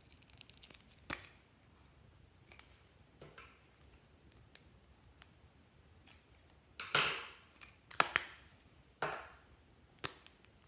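Metal lipstick tubes being handled: sharp clicks and snaps as caps come off and lipstick is snipped into a glass dish of clear slime. The loudest snaps come in a cluster about seven seconds in and again near nine seconds.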